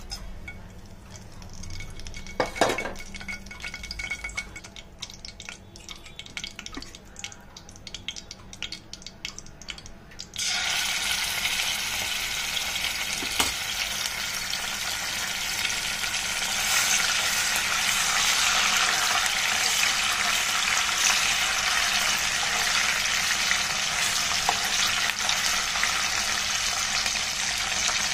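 Whole spices frying in hot oil in a pan, crackling lightly, with a clink about two and a half seconds in. About ten seconds in, a paste goes into the hot oil and a loud, steady sizzle starts, growing a little fuller later on.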